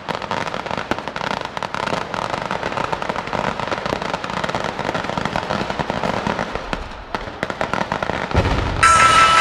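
Dense, continuous crackling of firecrackers: many small pops in quick succession. A low thump comes near the end, and then music begins.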